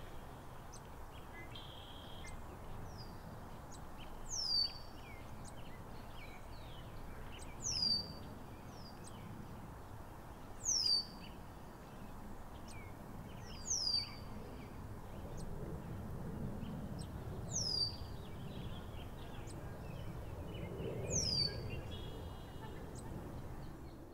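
A bird repeating one short, high call that slides downward in pitch, about every three to four seconds, with fainter chirps in between, over a steady low outdoor rumble.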